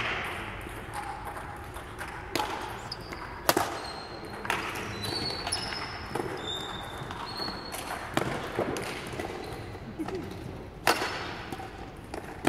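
Badminton rally: rackets strike the shuttlecock in sharp cracks a second or more apart, with short high squeaks of shoes on the court mat between hits.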